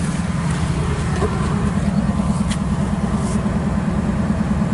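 Steady low engine rumble of a vehicle idling, with a faint click about halfway through.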